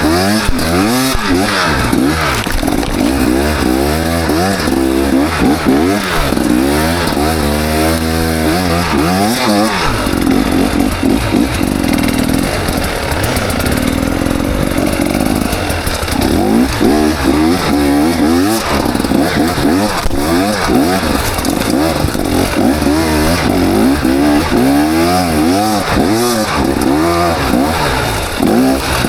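KTM 300 XC two-stroke dirt bike engine revving up and down over and over, its pitch rising and falling every second or two, with a steadier stretch in the middle.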